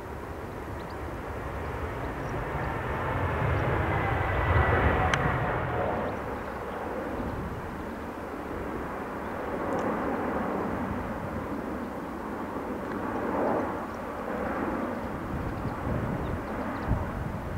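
Boeing 787 Dreamliner's turbofan engines as the airliner flies past low. The jet noise swells to its loudest about four to five seconds in, with a thin whine falling in pitch as it passes, then carries on as a rumble that rises and falls.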